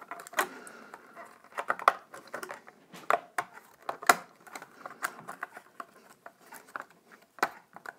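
Irregular clicks, taps and rubbing as a Precision bass pickguard is pressed and worked down onto the body by hand, pushing the wiring into the cavity. The sharpest tap comes about four seconds in.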